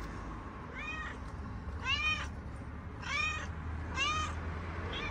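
Kitten meowing four times, about one call a second, each call a short high-pitched cry that rises and falls.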